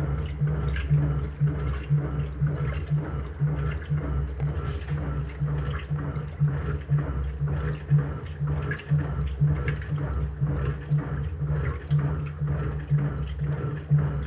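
Electrolux LT09B washing machine running with water sloshing and churning over a steady low motor hum, broken by frequent irregular splashes.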